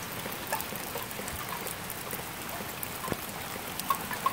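Rain falling steadily, with scattered drops ticking close by.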